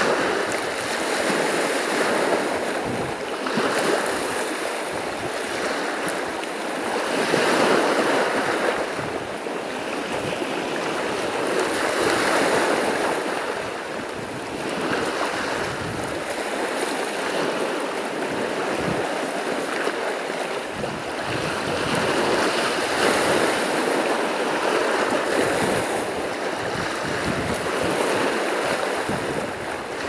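Sea surf washing onto the shore, a continuous rush of waves that swells and eases every few seconds.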